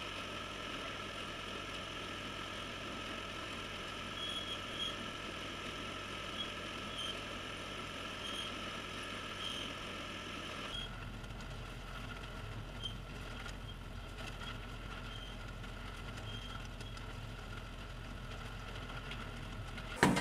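John Deere farm tractor running steadily at idle, powering a bale elevator that carries straw bales up into a barn loft, with a few light clinks from the elevator. About halfway through the drone shifts suddenly to a deeper tone.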